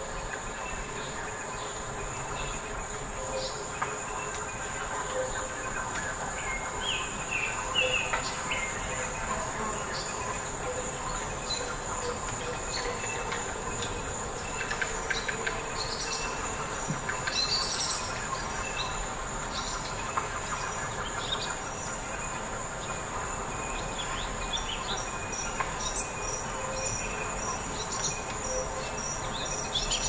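Forest ambience: a steady high-pitched insect drone with many short bird chirps and calls scattered over it.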